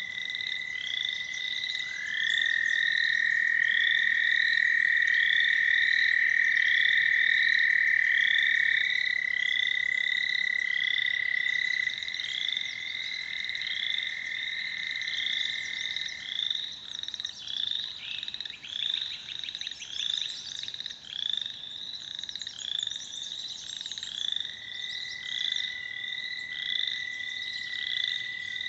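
American toads trilling: long, steady, high trills that overlap, two or three at a time for the first third, then fading to one that breaks off, with a fresh trill starting near the end. Behind them a chorus of short, rising high chirps repeats about twice a second throughout.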